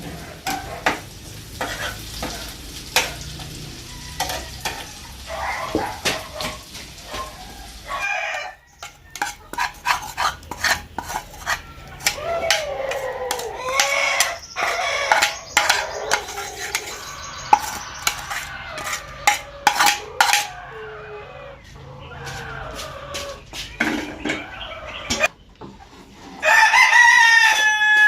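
Utensil clicking and scraping against a pan while food is stirred and fried, many sharp clicks throughout. A rooster crows loudly in the last couple of seconds.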